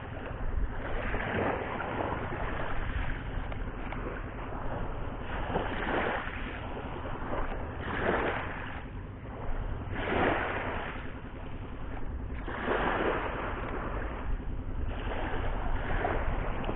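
Small waves washing onto the shore in surges every two to three seconds, over a steady low wind rumble on the microphone.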